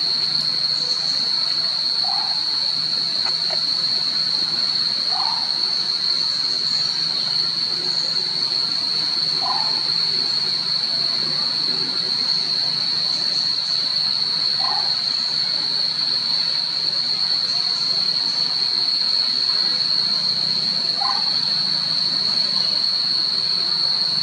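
A steady, high-pitched insect drone, with a short call near a chirp's pitch breaking in about every few seconds, five or six times.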